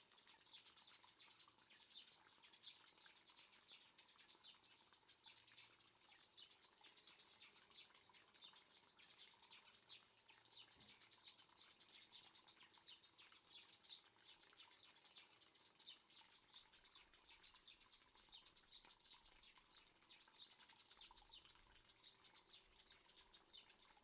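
Very faint garden-pond ambience: a dense, fine patter of quick high ticks.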